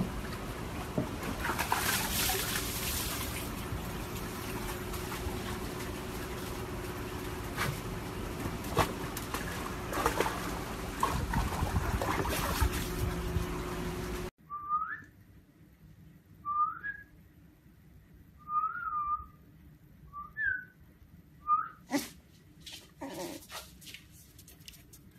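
Water sloshing and splashing in a plastic tub as a husky moves about in it and climbs out. After a cut come about half a dozen short, high, rising squeaks from a husky puppy, with a few knocks near the end.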